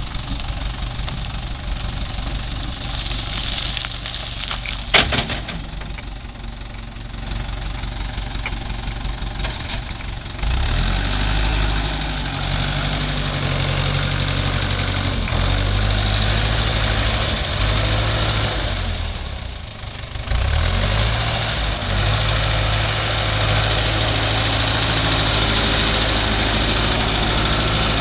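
Case 530 Construction King backhoe's engine running at low speed, with a sharp click about five seconds in. The engine speeds up and gets louder about ten seconds in, drops back briefly near twenty seconds, then runs up again.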